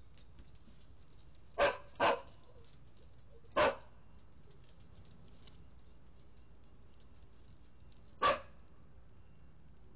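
Dog barking: four short barks, the first two in quick succession, a third about a second and a half later, and a last one several seconds after.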